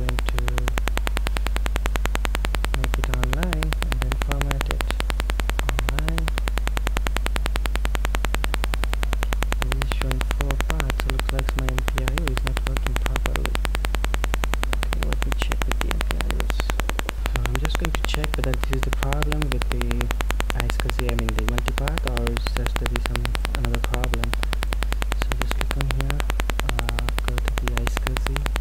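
Loud, steady electrical hum and buzz from a faulty microphone, with a garbled, indistinct voice faintly underneath.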